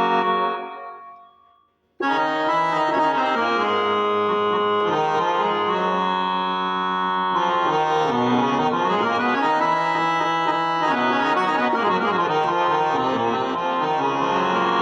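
Korg Pa-series arranger keyboard sounding one of its preset tones: a held chord fades away, then about two seconds in a new sustained tone starts, playing chords with a moving melody line.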